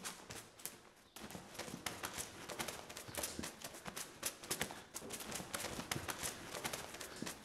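A dense run of sharp, irregular clicks and knocks, several a second, from a film soundtrack.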